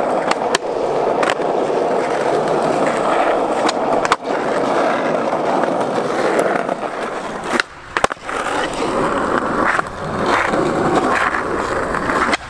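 Skateboard wheels rolling on rough asphalt, a steady grinding rumble. A few sharp clacks of the board come through, with a brief lull and then two clacks about eight seconds in.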